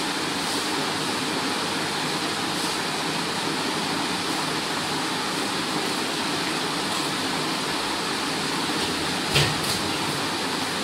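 Steady rushing noise, even and unbroken, with one short knock about nine seconds in.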